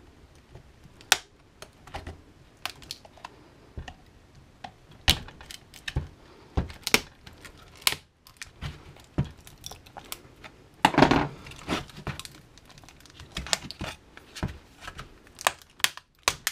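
Plastic laptop battery pack case being pried apart with a screwdriver: irregular sharp clicks, snaps and cracks as the glued seams give way, with a longer crackling stretch a little past the middle.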